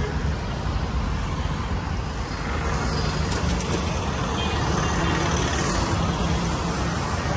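Steady roadside traffic rumble, with the hiss of hot oil in a large kadai where battered green chillies (mirchi bhajji) are deep-frying, and a few sharp clicks a little over three seconds in.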